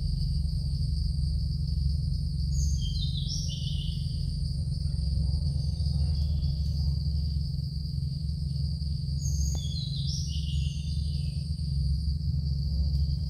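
Forest ambience: a steady high insect drone over a steady low rumble, with two bursts of chirping bird calls, about three seconds in and again about ten seconds in.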